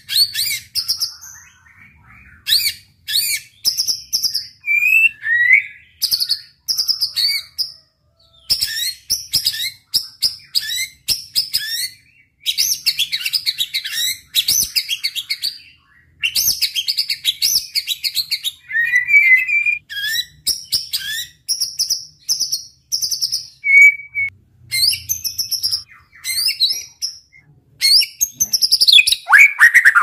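White-rumped shama singing a long, varied song: runs of fast repeated notes alternate with clear whistled phrases, broken by short pauses.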